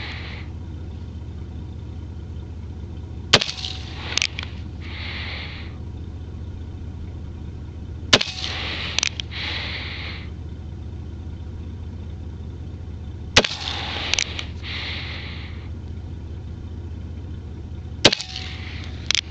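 An 1860 Colt cap-and-ball revolver firing black-powder loads: four single shots about five seconds apart. Each shot is followed by a couple of faint clicks and a short hiss, over a steady low hum.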